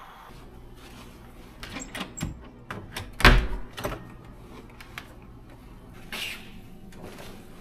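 A few sharp knocks and clicks, the loudest a thump about three seconds in, then a short swish a little after six seconds.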